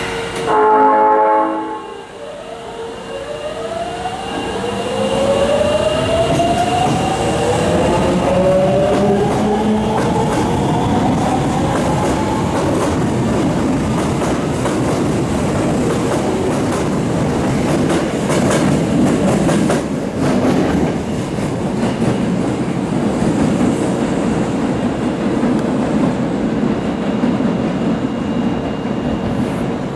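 Osaka Metro Tanimachi Line train sounding its horn briefly, then pulling away: a rising motor whine over several seconds as it accelerates, settling into steady running noise with wheels clattering over rail joints.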